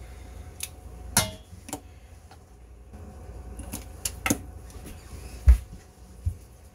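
Metal tongs clicking and tapping against a stainless steel frying pan as pieces of searing sirloin steak are turned, with a heavier knock about five and a half seconds in.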